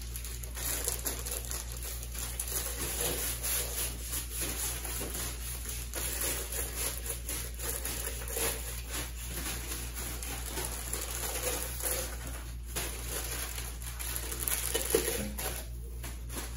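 Plastic sweet wrappers and bag crinkling and rustling, with small irregular taps as wrapped candies are placed into the tins, over a steady low hum.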